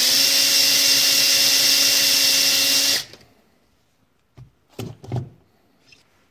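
Cordless drill spinning a hone stone in the poppet seat of a cast-iron John Deere SCV hydraulic valve body, running at a steady speed for about three seconds, then stopping suddenly. The stone is cleaning up the valve seats. A few short knocks follow a second or two later.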